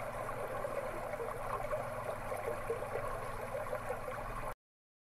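Steady running water, a low babble and trickle, which cuts off abruptly about four and a half seconds in.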